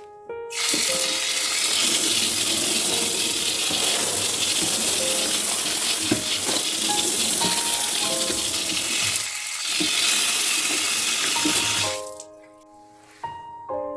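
Water running steadily from a tap, with a brief dip near the end before it cuts off, over background music.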